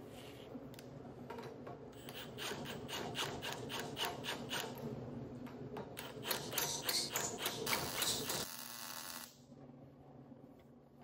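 Cordless drill/driver driving a fastener into a steel axle-housing fixture, giving a fast run of sharp clicks and rattles that stops near the end.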